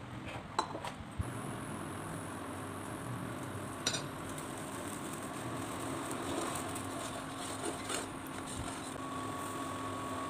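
Steady whir of an induction cooktop running under a stainless steel saucepan, with a few sharp clinks of the metal lid and a wooden spoon against the pan. A thin steady tone joins the whir about nine seconds in.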